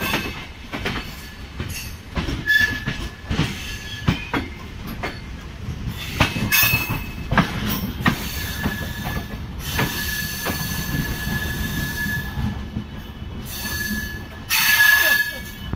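Passenger train wheels running over rail joints and points, giving irregular clacks, with a high-pitched wheel squeal on the curve that comes and goes. Heard from an open coach doorway, loudest near the end.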